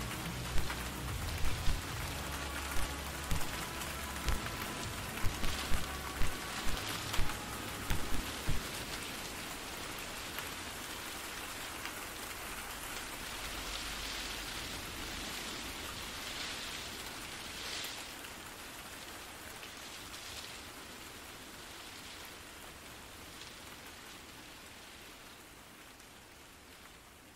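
Steady rain falling on a surface, an even hiss. For the first eight seconds or so the end of a song's bass-heavy beat plays under it, then stops; the rain then slowly fades out.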